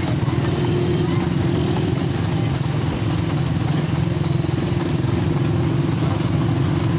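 Motorcycle engines running steadily alongside a trotting tanga horse, whose hooves clop on the paved road under the drone.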